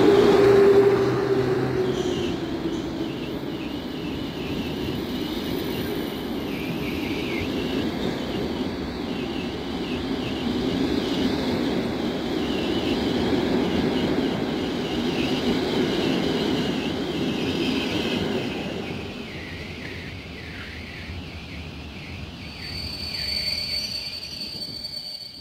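Passenger coaches of a departing train rolling past at low speed, their wheels running steadily over the rails. The EP07 electric locomotive's steady whine fades in the first two seconds as it pulls away. The rolling dies down after about 19 seconds, and a thin high squeal sounds near the end.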